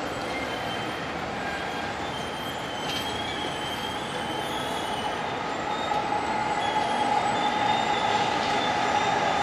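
JR Yamanote Line electric train running past on the tracks, its wheels squealing in thin high tones over a steady rumble. The rumble grows louder about six seconds in.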